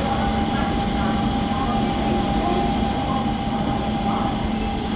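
Steady mechanical hum with a constant thin whine, level throughout, with faint voices in the background.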